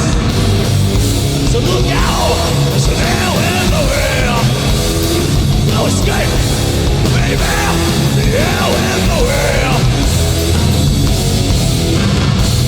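Hardcore punk band playing live and loud, a dense, unbroken wall of heavy music with some bending, gliding notes now and then.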